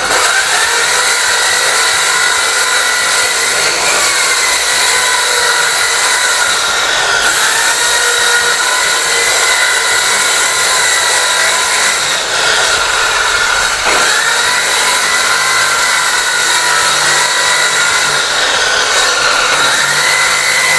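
Electric hand planer running steadily as it is pushed along a long wooden plank, its whine dipping in pitch and recovering several times as the blade bites under load. A sharp click sounds about two-thirds of the way through.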